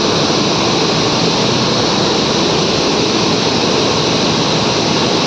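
Steady, loud rushing hiss of water spraying under pressure from a loosened pipe fitting.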